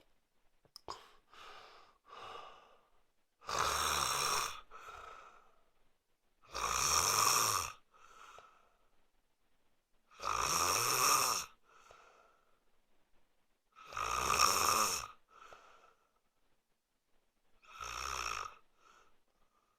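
A man snoring in his sleep: five loud snores about every three and a half seconds, each followed by a short, softer breath.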